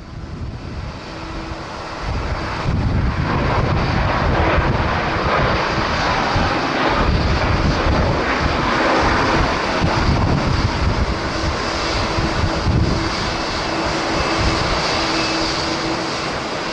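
Jet engines of a Boeing 737-800 airliner running loud and steady after swelling up over the first few seconds. A gusty low rumble of strong wind buffets the microphone throughout.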